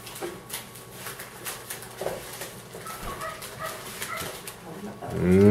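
Faint rustles and clicks from unwrapping raw ground pork sausage from its butcher paper. About five seconds in, a loud, low, drawn-out vocal sound begins, rising in pitch.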